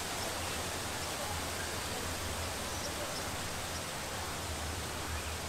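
Steady rushing of a waterfall and its rocky stream: an even hiss with a low rumble underneath.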